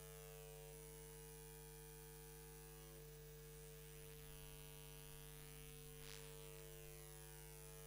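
Near silence carrying a steady electrical mains hum, with a faint tick about six seconds in.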